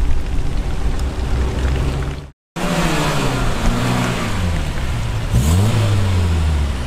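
A Dodge Challenger's engine rumbling as it drives past on a wet road, then, after a short break, a 1970s Toyota Celica's four-cylinder engine passing, its pitch sagging and then rising sharply as it accelerates, over the hiss of tyres on the wet road.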